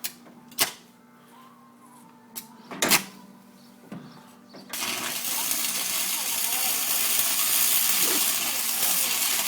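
A few short clicks, then about five seconds in an arc welder strikes up and welds steadily on steel, a continuous even hiss as a full weld bead is laid.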